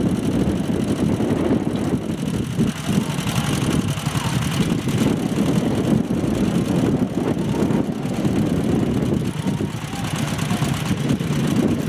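Engine of a two-wheel walking tractor (motoculteur) running steadily with a rapid low pulsing.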